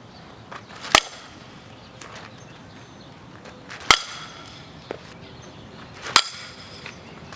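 Softball bat hitting pitched balls, three sharp ringing cracks about two to three seconds apart.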